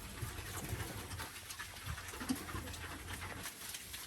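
Pigs eating fodder, with irregular chewing and crunching noises.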